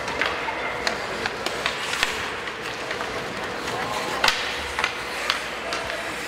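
Ice hockey play in a rink: irregular sharp clacks of sticks and puck on the ice, the loudest about four seconds in, over a steady background of spectators talking.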